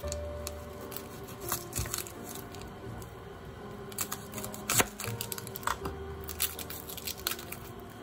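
Dry, papery skin of a yellow onion crackling and tearing as it is peeled off with a knife and fingers, in small irregular crackles with one sharper click about five seconds in. Background music plays under it.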